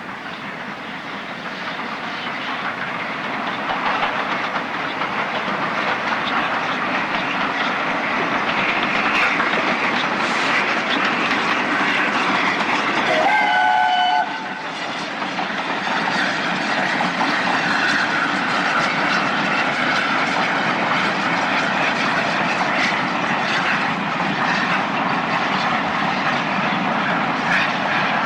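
Steam-hauled train running along the line, its rumble and wheel clatter swelling over the first few seconds. A short steam whistle sounds about halfway through, and just after it the sound drops suddenly, then carries on steadily.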